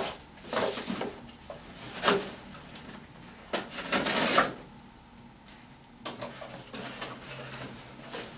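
A cardboard box being opened by hand: several sharp scrapes of the cardboard flaps, the longest about four seconds in, then softer rustling as the flaps are folded back.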